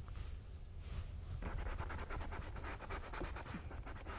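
Paintbrush bristles scrubbing on a stretched canvas in quick short strokes, about eight a second, starting about a second and a half in, as wet oil paint is blended. A low steady hum runs underneath.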